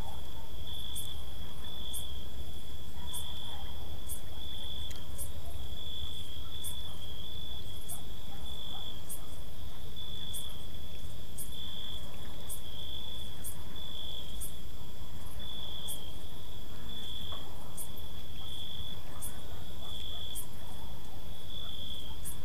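Night ambience of crickets: a steady, pulsing high chirping, with a sharp high tick about once a second from another insect and a low steady rumble beneath.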